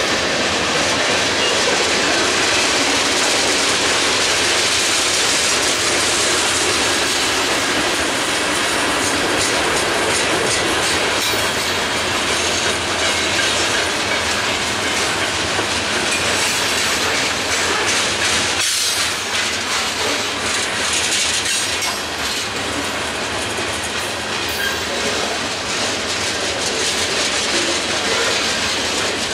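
Freight cars of a long mixed freight train (tank cars, covered hoppers, lumber flatcars) rolling past at speed. Steel wheels make a steady rushing rumble on the rail, with a clickety-clack of wheelsets.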